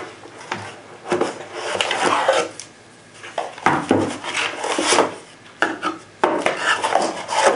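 Cardboard packaging scraping and rubbing as a flashlight is slid out of its box insert, with a few knocks as it is set down on the table and the box is handled.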